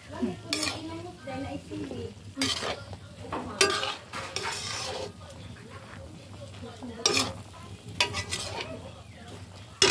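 Metal spatula stirring vegetables in a steaming metal wok, with several sharp scrapes and clinks against the pan at irregular intervals over a soft sizzle.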